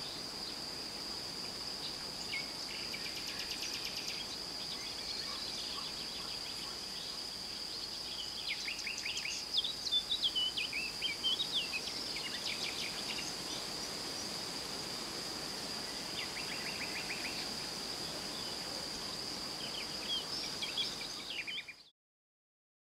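Bird chorus over a steady high-pitched insect trill and soft leaf rustle. Songbird chirps and trills come and go and are busiest in the middle; everything cuts off suddenly near the end.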